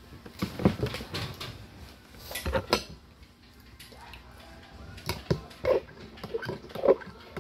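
Metal spoon clinking and knocking against a drinking glass and dishes: a series of sharp, separate clinks, the later ones as the spoon stirs milk in the glass.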